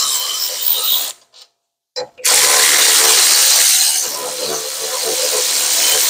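Cordless electric ratchet with an 18 mm socket spinning out the rear brake caliper bracket bolts, in two runs: the first stops about a second in, the second starts about two seconds in and runs on to the end.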